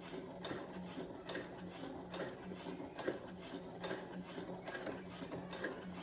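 Brother CS7000X computerized sewing machine stitching steadily. Its motor hums evenly under a regular clicking of the needle and feed.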